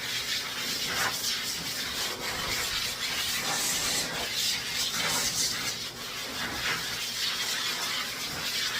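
Dog-grooming blow dryer blowing a steady rush of air, its level wavering slightly.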